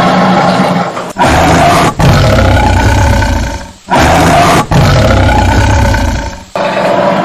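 A tiger roaring repeatedly: loud roars with deep rumbling stretches, broken by short pauses every second or two.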